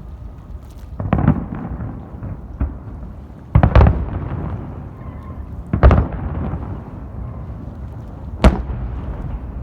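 Aerial fireworks bursting overhead: about five sharp booms, each trailing off in a rumble. The loudest are a double bang just before the middle, one a little later, and one near the end.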